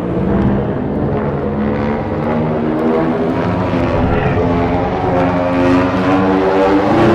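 Godzilla monster sound effect: a long, low, continuous pitched rumble that rises slightly in pitch toward the end.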